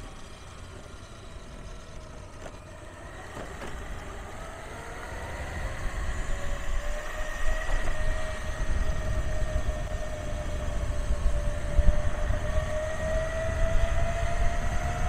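Steel helical gear drive (7:1 reduction) of a custom electric mountainboard whining as the board rolls, with a low rumble of the wheels on the pavement. The whine rises in pitch and grows louder about a third of the way in as the board speeds up.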